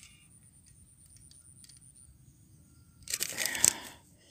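Handling noise in dry grass: faint at first, then about three seconds in a loud burst of rustling and crackling, about a second long, with a few sharp clicks.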